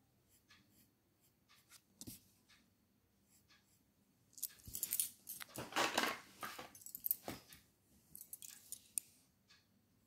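Faint pencil strokes scratching on drawing paper, then a few seconds of loud rustling and clattering handling noise about halfway through, as the sketch on its sheet of paper is shifted.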